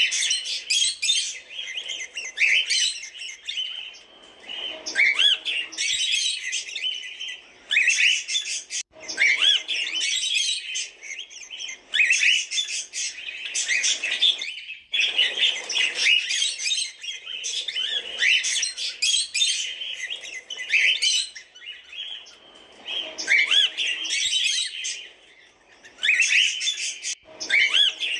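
Cockatiels chirping and calling in dense bursts of high chirps, with brief pauses every few seconds.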